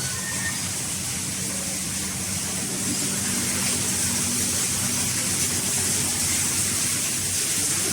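Steady rushing noise like running water, with a low steady hum underneath.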